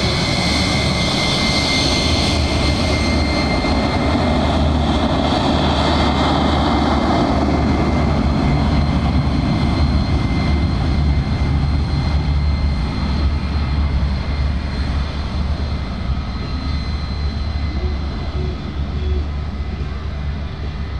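A MiG-17's turbojet engine running at taxi power as the jet taxis, a steady rush with a high whine on top. The whine is strongest in the first few seconds, and the sound grows a little quieter near the end.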